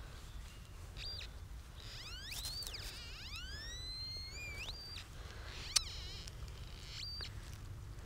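Metal detector's electronic signal tone gliding up and down in pitch and levelling off at a steady high beep at its peak, sounding several times as it is swept over the dug soil: it is picking up a buried coin. A sharp click just under six seconds in.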